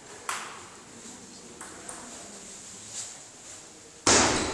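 Celluloid-type table tennis ball ticking off bats and the table during a serve and rally, a handful of sharp, irregularly spaced clicks. Near the end a much louder sudden noise cuts in.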